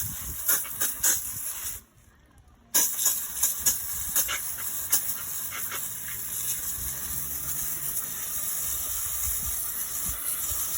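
Garden hose spraying water onto a motorcycle drive chain to rinse off chain cleaner: a steady hiss with scattered spattering ticks. It cuts out briefly about two seconds in.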